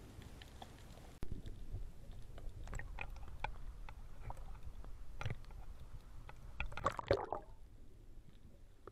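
Seawater sloshing and gurgling around an action camera in its waterproof case at the sea surface, with scattered clicks and splashes. It grows louder about a second in, and near the end a short flurry of louder splashing gives way to a quieter hush.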